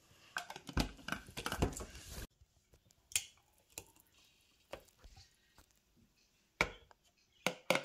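Clatter and knocks of a plastic portable blender jar and kitchenware being handled at a sink, dense for about two seconds, then only a few scattered light knocks.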